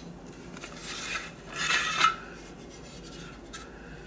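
Hard case of a precision screwdriver bit set being slid open: the sleeve scrapes and rubs along the bit tray, ending in a sharp knock about two seconds in.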